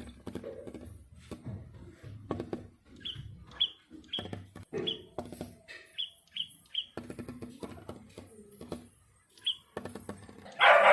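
A small bird at a glass window chirping in short repeated notes while tapping and fluttering against the pane in irregular sharp knocks, with a louder burst near the end. This is typical of a bird attacking its own reflection in the glass.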